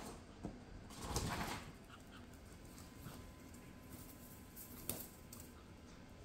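Pomeranian tussling with a plush teddy bear: faint scuffling and dog sounds, loudest in a short burst about a second in, with a sharp click about five seconds in.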